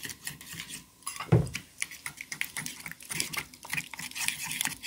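A metal utensil stirring and scraping a wet dressing of chopped mint, lemon and oil in a small ceramic bowl, with quick clinks against the bowl's sides. A single dull thump about a second and a half in.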